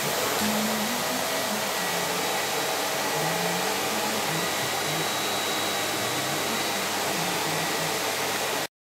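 Vacuum cleaner running steadily with a rushing hiss and a faint high whine, its floor nozzle working a tiled floor. It cuts off suddenly near the end.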